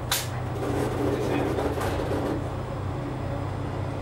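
KiHa 31 diesel railcar's engine running steadily with a low hum while the railcar rolls forward along the platform, heard from inside the front cab. A sharp click sounds just at the start and another a little under two seconds in.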